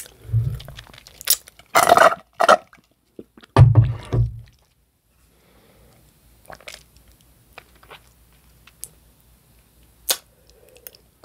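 Close-miked mouth sounds: chewing, lip smacks and tongue clicks while working chocolate stuck in the teeth loose. Two low thuds fall in the first half, and the clicks grow sparse and faint after that.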